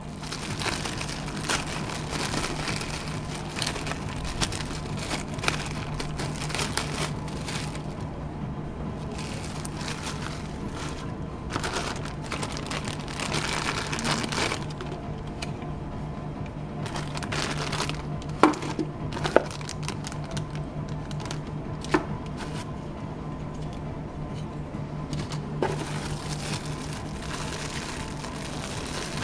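Thin plastic bags crinkling as hands unwrap small dashcam accessories such as a mount and a charger cable, with a few sharp plastic clicks in the second half, over a steady low hum.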